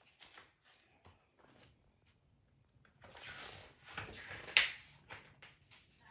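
Paper pages of a picture book rustling as they are turned by hand, with a sharp click of paper about four and a half seconds in.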